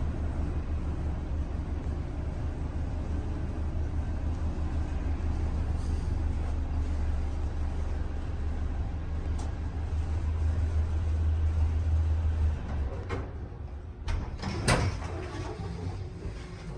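Original Westinghouse elevator running with a steady low hum, which stops about three-quarters of the way through as the car arrives. A few clunks follow, one of them loud, as the car stops and its doors open.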